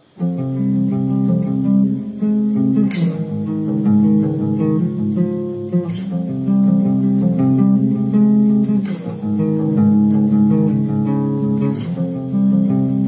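Cutaway acoustic guitar played fingerstyle, picking a repeating chord progression with a sharper accented strum about every three seconds.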